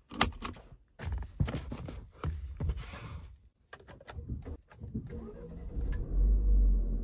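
Jeep Compass engine started by push button about six seconds in, catching and settling into a steady low idle. Before that, a series of clicks and rustles from a hand working the seat and console controls.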